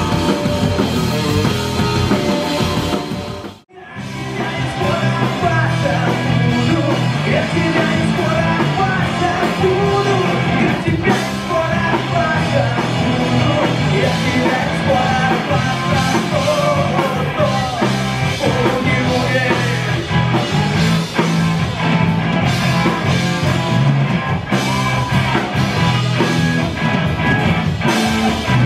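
Rock band playing with electric guitars, bass guitar, drum kit and singing. The music breaks off for a moment about four seconds in, then carries on.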